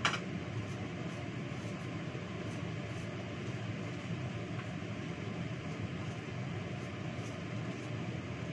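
Steady rushing kitchen noise, with a short clatter right at the start.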